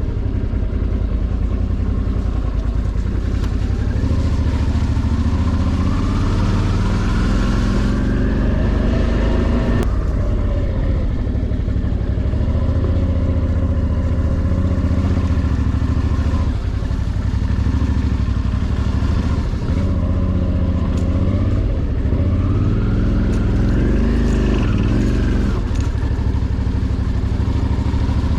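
Suzuki V-Strom 650's V-twin engine running under way, its revs climbing and dropping several times with the throttle.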